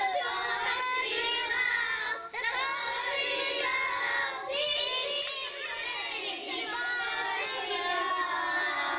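A group of young children singing a song together in unison.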